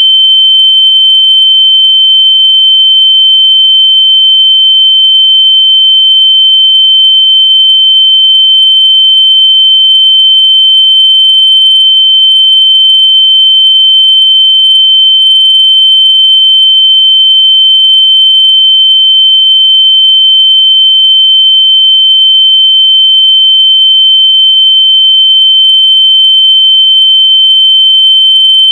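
A loud, steady, high-pitched electronic sine tone held without a break: a locator tone played through lost AirPods so they can be found by ear.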